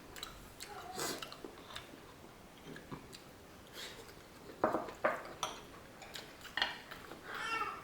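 Eating at the table: scattered clicks and taps of utensils against dishes, with some chewing.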